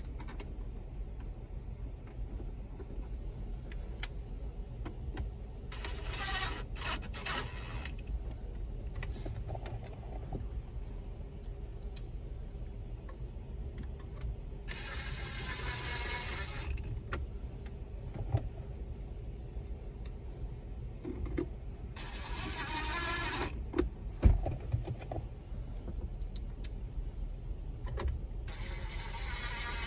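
DeWalt 20V cordless driver running in four short bursts of a second or two each, driving the screws that hold the radio in its plastic dash fit kit, with small handling clicks between. A sharp knock a little past the middle is the loudest sound.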